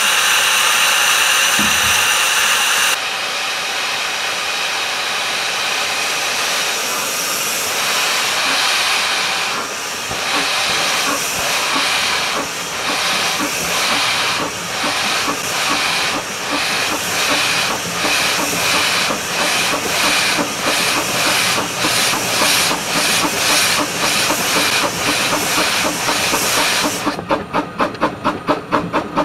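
A 12.25-inch gauge steam locomotive: steam hisses steadily at first, then the engine starts off with exhaust beats mixed with steam blowing from its open cylinder drain cocks. The beats quicken as the train gathers speed. Near the end the hiss drops away, leaving crisp, even chuffs about three to four a second.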